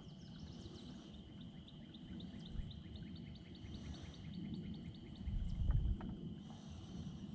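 Outdoor ambience with a steady high-pitched chorus of calling animals. Over it, a series of short rising chirps repeats about four times a second for the first few seconds. A low rumble comes a little past halfway.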